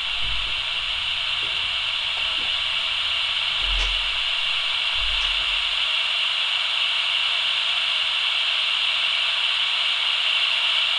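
Steady hiss from the speaker of a cheap children's walkie-talkie: the open noise of its one-transistor superregenerative receiver with no signal coming in.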